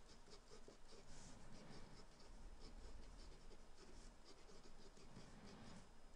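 Felt-tip marker scratching across paper in many short strokes as capital letters are written; faint.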